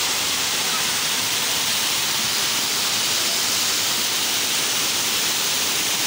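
Waterfall pouring down a rock face close by: a steady, even rush of falling water, strongest in its high hiss.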